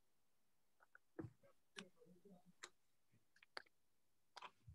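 Near silence broken by about five faint, irregular clicks spread over the span, with a faint low murmur about two seconds in.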